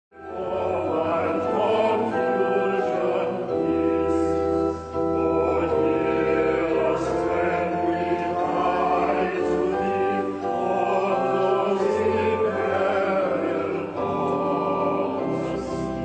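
A church congregation singing a hymn in long held notes over a steady organ accompaniment.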